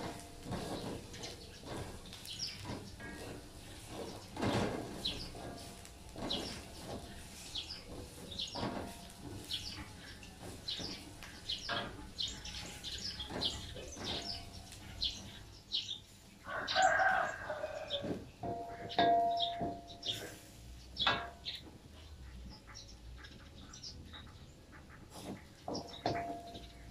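Wooden spatula scraping and tapping against a wok while chopped garlic and shallots are stir-fried in oil, in irregular strokes. About two-thirds through, a louder animal call with a clear pitch rings out briefly, and short bird-like calls come and go in the background.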